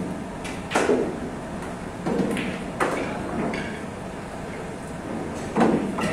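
Four dull knocks over a steady murmur of background noise, the loudest about a second in and near the end, with two lighter ones between.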